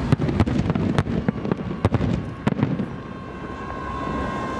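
Aerial firework shells bursting in a rapid run of bangs and crackles that thins out and stops about two and a half seconds in, leaving a quieter stretch with a thin steady tone.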